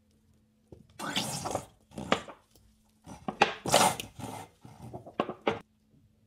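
Soapy car sponge squeezed by hand, giving wet squelching, crackling squeezes, about four in a row with short pauses between.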